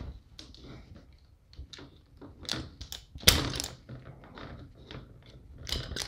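Self-adjusting wire stripper clicking and clacking as its handles are squeezed on a wire to grip and strip the insulation, with one sharp snap about three seconds in and more clicks near the end.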